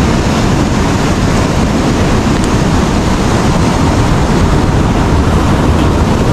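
Ocean surf breaking on a beach in a steady wash, with wind rumbling on the microphone.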